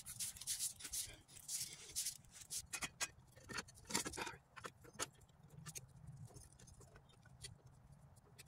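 Scattered light clicks and knocks of a homemade steel pipe retort and its fittings being handled and set in place, coming thickly at first and thinning out in the second half.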